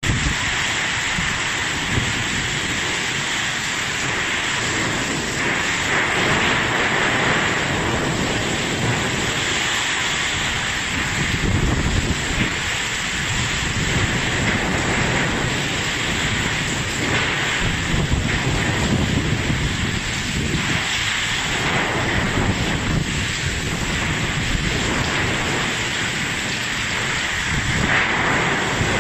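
Heavy rain and strong gusting wind of a tropical cyclone, a steady rush of noise with surging gusts buffeting the microphone.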